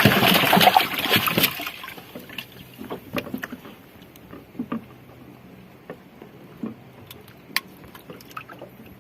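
Water splashing for about a second and a half, then scattered light knocks and taps.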